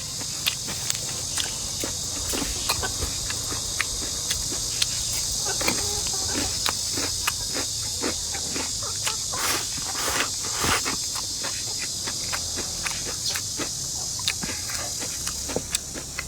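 A steady, high-pitched chorus of insects runs throughout. Over it come many short, irregular clicks and smacks of someone chewing and eating up close.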